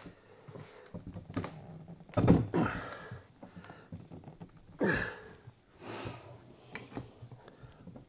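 A man straining on an adjustable wrench to break a gas valve's threaded joint loose from a furnace burner manifold: a few light metal clicks of the wrench, then two loud effortful grunts or forced breaths, one a little over two seconds in and one near five seconds.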